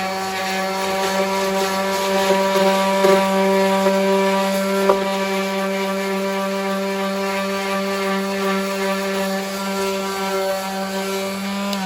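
Electric palm sander running steadily with a constant hum, sanding Bondo body filler. It is switched off right at the end, its pitch falling as it winds down.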